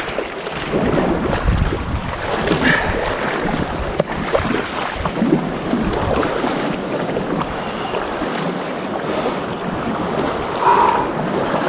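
Sea water splashing and sloshing around an inflatable kayak as it is paddled, with wind buffeting the microphone.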